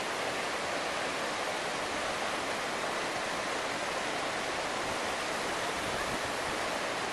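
Steady rush of whitewater in a mountain creek tumbling over boulders.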